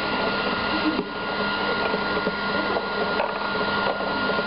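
A small motor running with a steady whir and hum, with a few faint clicks.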